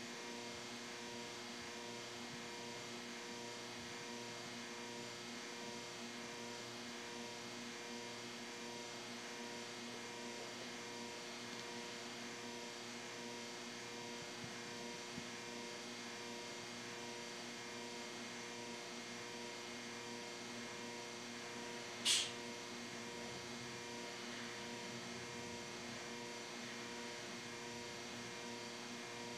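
Steady electrical hum made of several fixed tones over a faint hiss, broken once by a single sharp click about two-thirds of the way through.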